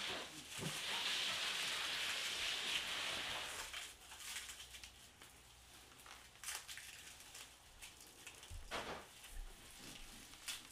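Handling noises from a Lectric XP 3.0 folding e-bike being set up: a hiss-like rustle lasting about three seconds, then scattered clicks and knocks as parts are adjusted.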